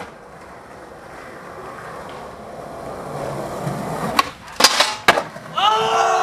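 Skateboard wheels rolling on concrete, growing louder as the board approaches. About four seconds in there is a sharp pop of the tail, then a loud clack and a short grind of the board on a metal handrail, and the landing snap a moment later. Near the end, several people start yelling.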